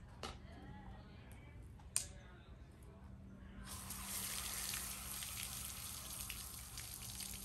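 Water starts running about four seconds in, a steady splashing hiss as grimy plastic center-console trim pieces are rinsed clean. Before that come light handling sounds and a single sharp click about two seconds in.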